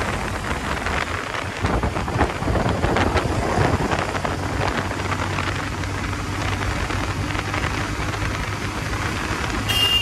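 Wind rushing over the microphone of a riding motorcycle, with the bike's engine running steadily underneath. A horn starts to beep at the very end.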